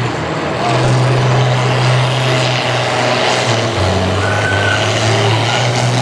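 John Deere farm tractor's diesel engine running hard under full load as it pulls a tractor-pull weight-transfer sled. It gets louder about a second in, and its pitch dips slightly around four seconds in.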